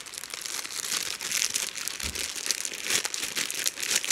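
A shiny foil pack of Crazy Bones crinkling and crackling irregularly as it is worked open by hand.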